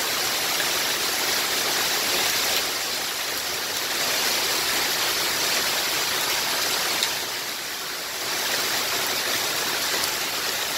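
Heavy downpour of rain mixed with small hail pelting the lawn and street: a steady, dense hiss that eases slightly about seven seconds in.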